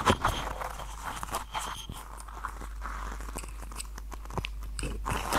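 Rustling handling noise with many short, sharp clicks close to a clip-on wireless lavalier microphone as it is moved about, over a steady low hum.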